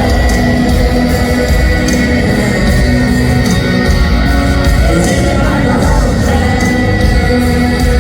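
Live band playing country music in an arena, with electric guitars, bass and drums loud and steady, as heard from the audience.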